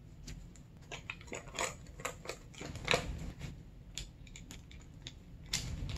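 Metal worm-drive hose clamp being wrapped around a PVC pipe fitting and tightened with a nut driver: a run of light, irregular clicks and rattles, the sharpest about three seconds in.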